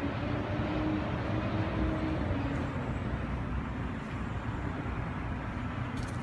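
Steady low rumble of city traffic, with a faint engine hum that fades out about two and a half seconds in.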